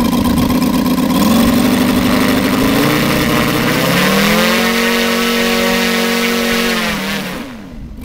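RCS 215 model-aircraft radial engine running on a test stand with a wooden propeller. It runs steadily, is throttled up about three to four seconds in and held at the higher speed, then eased back near the end, dropping in pitch and level.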